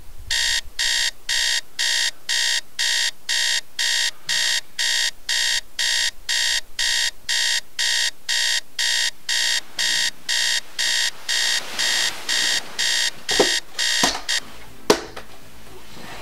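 Electronic alarm clock beeping in a steady repeating pattern, about two high beeps a second, until it stops about fourteen seconds in amid a few sharp knocks.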